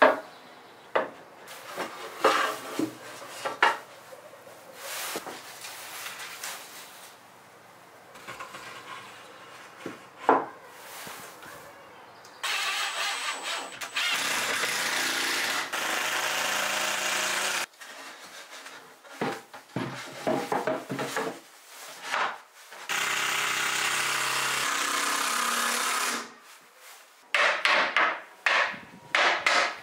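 A cordless impact driver drives wood screws into pine shelf supports in two steady runs of a few seconds each. Between them come knocks and clatter of wood being handled and set in place.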